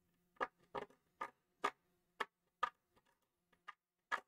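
Metal multimeter probe tip scraping against a coated metal chassis in short strokes, about two a second, working to cut through the coating to bare metal.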